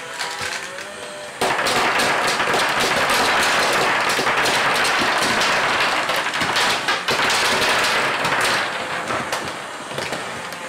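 Dense, rapid clatter of many small plastic B-Daman marbles, fired from hand-held B-Daman launchers, hitting, bouncing and rolling across a wooden tabletop and against its clear plastic walls. It starts abruptly about one and a half seconds in and eases off near the end.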